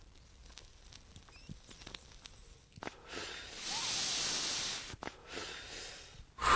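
Whooshing hiss sound effects of an animated logo intro: a soft hiss swells up about three seconds in and fades, then comes a brief click near five seconds, a smaller swell, and a louder whoosh at the very end. Before that there are only faint crackles.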